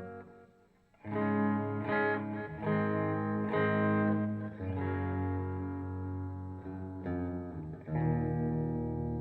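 Ibanez S470 electric guitar played through a Traynor YCV40 amp. A ringing note dies away, and about a second in picked notes and chords start again, each ringing on into the next.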